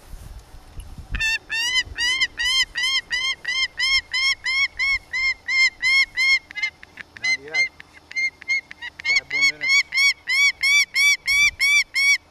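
A falcon calling: a long run of regular, ringing 'kek' notes, about three or four a second, with a break about halfway through that holds a couple of lower, rising calls.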